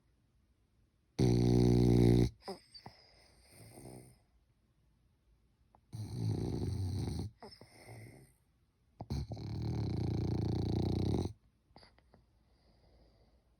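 French bulldog snoring: three loud snores a few seconds apart, each one to two seconds long, the first with a buzzing pitch and the last the longest, with softer breaths between.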